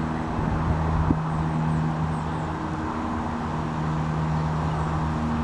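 An engine running steadily: a low, even hum with a faint rushing noise over it, and a few light knocks in the first second or so.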